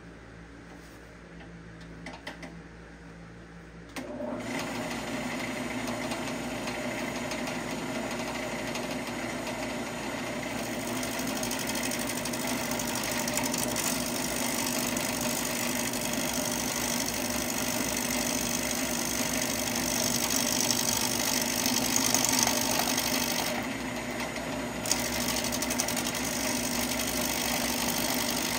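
Wood lathe turning a glued-up blank of mixed hardwoods, with a bowl gouge biting into the spinning wood about four seconds in: a loud, steady cutting noise that lets up briefly about four seconds before the end. Before the cut starts only the lathe's quieter hum is heard.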